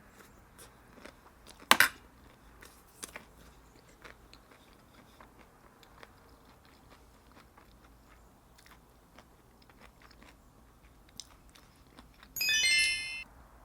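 A person eating close to the microphone: crisp crunching bites and chewing, with one loud crunch about two seconds in. Near the end comes a brief high-pitched ringing chime, under a second long.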